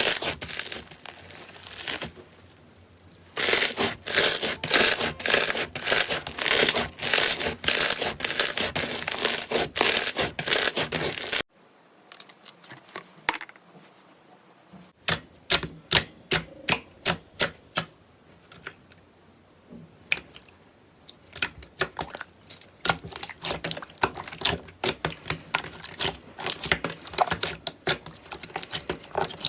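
Slime being squeezed and worked by hand, giving dense crackling and popping. The sound cuts off suddenly about a third of the way in. After a few quieter seconds it comes back as sparser, sharp pops and clicks.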